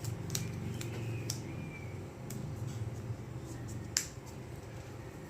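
A few light clicks and taps as plastic toy parts and sticker sheets are handled, the sharpest about four seconds in, over a low steady hum.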